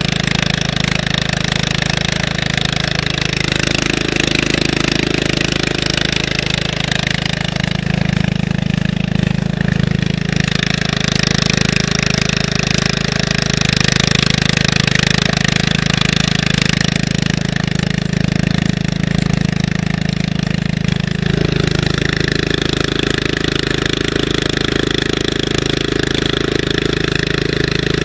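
John Deere 13-horsepower vertical-shaft engine of a home-made shifter cart running steadily while the cart is driven, with a change in the engine note about three-quarters of the way through.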